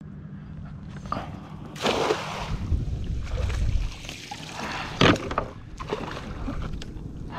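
Water splashing and running off a cast net as it is hauled up out of the river beside a kayak, with a sharp knock about five seconds in as the weighted net comes down onto the plastic kayak deck.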